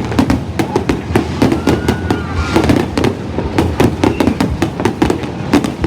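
Fireworks going off in a dense, continuous run of sharp bangs and crackles, with crowd voices underneath.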